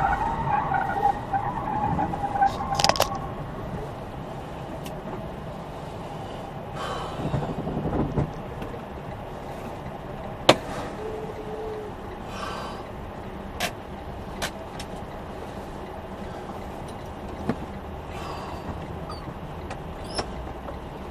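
Tyre squeal from a skid dies away in the first few seconds, then steady road and engine noise from inside a vehicle cab, with sharp clicks or rattles now and then, the loudest about ten seconds in.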